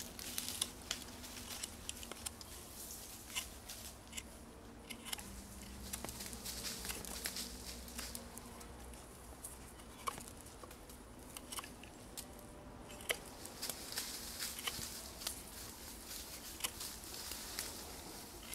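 A knife shaving wood from a stick to carve a pointed end: short, irregular scraping strokes of the blade through the wood.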